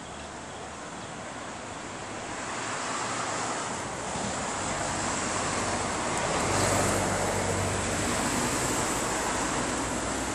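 Road traffic noise: a steady rushing that swells as a vehicle passes, loudest around the middle, then eases off.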